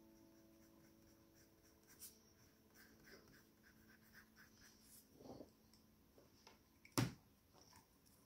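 Faint scratching of a white colored pencil (Prismacolor PC938) stroking across kraft paper as highlights are laid into a portrait, with one sharp click about seven seconds in. A held musical note fades out at the start.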